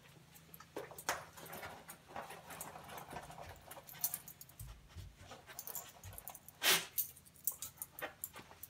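Dog sniffing hard in quick noisy bursts, with some panting, its nose worked along a door threshold while searching for a scent hide. One louder burst comes about two-thirds of the way through.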